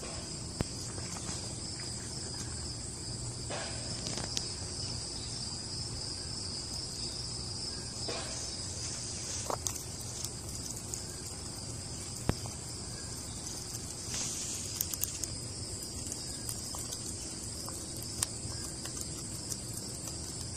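Steady, high-pitched chorus of insects with scattered sharp clicks and taps; the loudest click comes about twelve seconds in.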